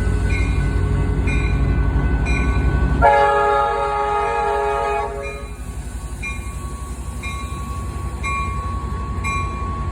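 Amtrak locomotive departing, its engine rumbling heavily, then one chord horn blast about three seconds in that lasts about two seconds. A bell rings steadily about once every 0.7 s throughout.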